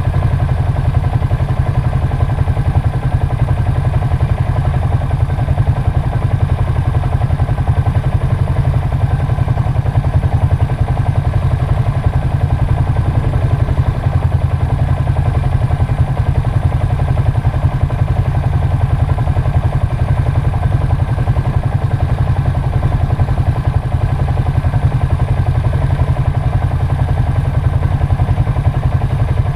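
ATV engine running at a steady speed, with no rise or fall in revs.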